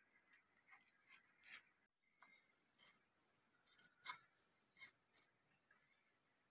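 Faint, sparse cuts of a cleaver chopping pineapple, soft crunching strikes with the clearest about four seconds in, over a steady high hiss.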